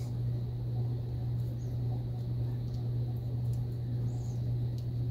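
A steady low hum throughout, with faint light ticks and small squeaks from a brush working grease into the main gear of a spincast fishing reel.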